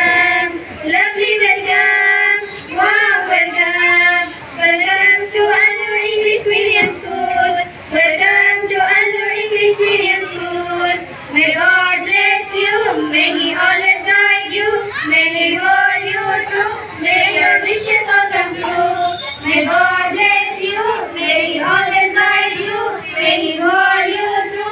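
Women and young children singing a song together, one melody line carried throughout.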